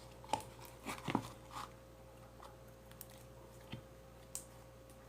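Soft squishy handling noises and a few faint clicks as a piece of old slime is pulled from its container, most of them in the first second and a half, over a faint steady hum.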